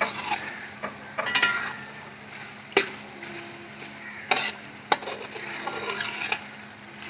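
Metal spatula stirring chicken masala in an aluminium pot over a wood fire, the masala sizzling as it fries, with a few sharp knocks and scrapes of the spatula against the pot.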